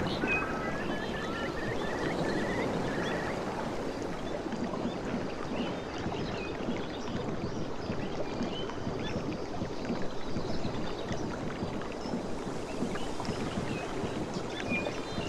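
Steady lapping and washing of water, with small birds chirping: a run of chirps and trills in the first few seconds and a few more near the end.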